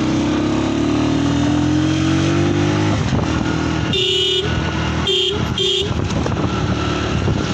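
Motorcycle engine running under way, its pitch rising slowly over the first three seconds as the bike picks up speed. Then a vehicle horn honks three times, one longer honk followed by two short ones.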